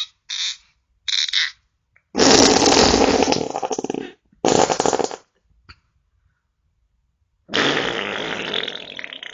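A series of farts: two short, hissing ones, then a loud one lasting about two seconds, a shorter one after a brief gap, and near the end another long one that trails off.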